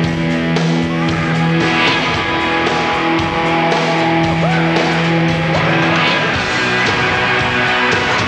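Rock music with guitar: a held chord sounds for the first six seconds or so, then the music changes to another passage.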